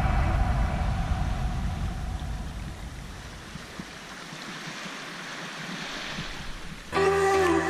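Background music fades out over the first few seconds, leaving a steady rush of water. New music comes in near the end.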